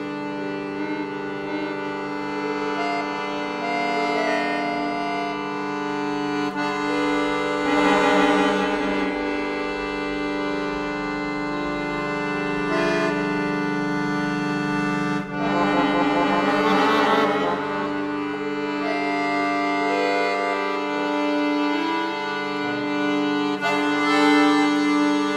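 Solo accordion free improvisation: sustained chords held on the reeds, with quick fluttering runs of notes darting over them twice, about a third of the way in and again just past the middle.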